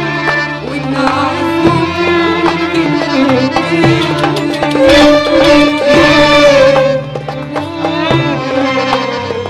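Live Arabic music: an orchestra of violins, accordion and cello with hand-drum percussion plays while a female singer holds long notes into the microphone.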